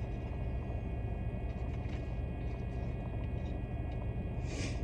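Steady low rumble and hum of a car's engine idling, with air blowing from the vents. A brief hiss comes near the end.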